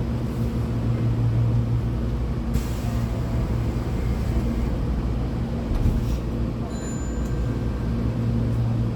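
Cabin sound of a Hankyu 8200 series electric train pulling away from a station: a steady low hum from the traction motors and Toshiba GTO-VVVF inverter, with a hiss coming in about two and a half seconds in.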